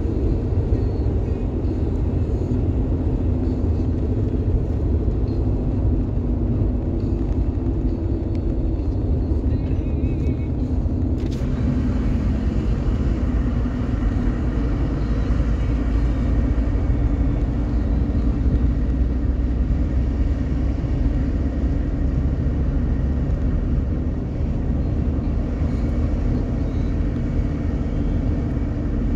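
Steady road and engine noise heard inside a car cabin at highway speed, mostly a low rumble with a faint hum. About eleven seconds in there is one sharp click, after which the hiss grows brighter.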